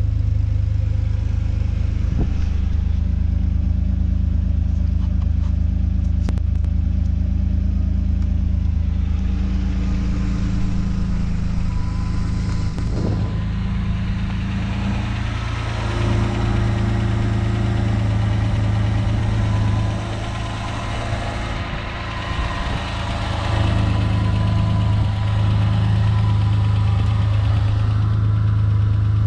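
Mercedes-Benz 190E engine idling steadily, its note shifting a few times.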